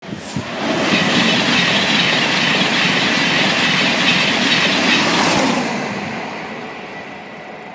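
LNER express passenger train passing over the level crossing at speed: a loud, steady rush of wheels on rail that builds in the first second, holds for about five seconds, then fades away as the train goes by.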